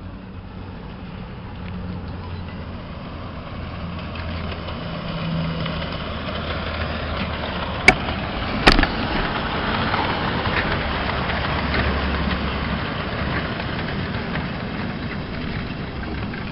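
Two miniature 10¼-inch gauge steam locomotives hauling a passenger train, their working steam and running noise growing louder as they draw near and pass close by. Two sharp knocks come about eight seconds in.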